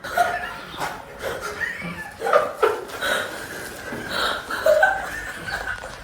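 A woman laughing in repeated short bursts, a voiced laugh that keeps breaking off and starting again.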